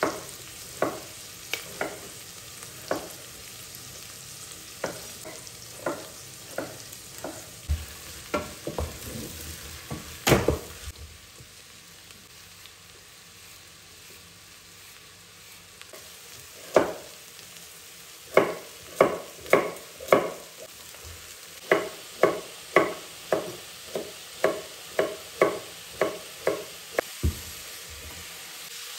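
Chef's knife chopping vegetables on a bamboo cutting board: sharp, irregular knocks at first with one loud knock about a third of the way in, then a pause, then a steady run of cuts through a carrot at about one and a half a second. Under it, a low steady sizzle of onions and green beans frying in a steel pot.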